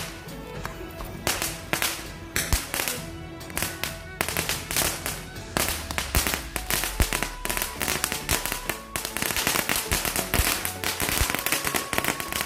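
Two ground fireworks spraying sparks and crackling: a fast, irregular run of sharp pops that begins about a second in and becomes dense from about four seconds on.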